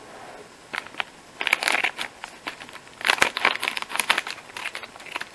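Plastic-foil snack bag crinkling as it is handled and cut open with scissors, in irregular crackly rustles from about a second in, with a few sharp clicks.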